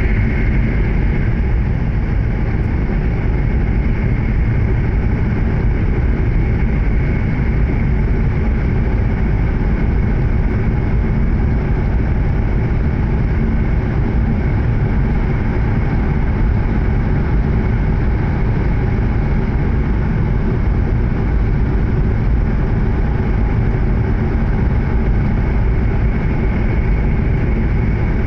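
Steady running noise inside an E7 series Shinkansen car at speed: a continuous low rumble of wheels on rail, with a faint steady high tone above it.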